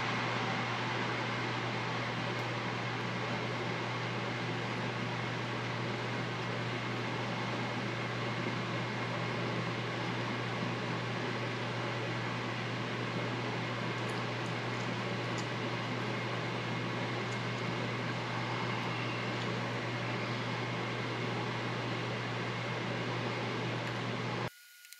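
Steady whirring of a motor-driven fan or blower, with a low hum under it, that stops abruptly near the end.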